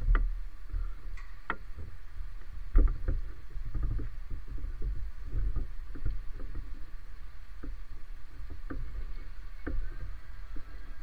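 Low rumble and irregular knocks of a handheld camera being carried and handled, with one louder knock about three seconds in, over a faint steady hum.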